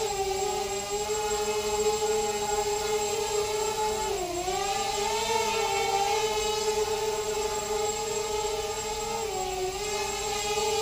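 Eachine Racer 250 quadcopter's brushless motors and propellers whining steadily in flight, the pitch dipping briefly about four seconds in and again near the end.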